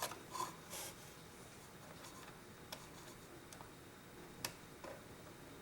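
Faint, scattered clicks and taps of a screwdriver tightening the screw that holds a cuckoo clock's bird in place, a few together at the start and single sharper ticks later.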